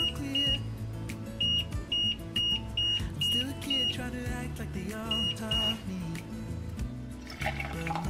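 Background music with a steady low part, overlaid by a series of short high beeps about half a second apart, in groups during the first six seconds.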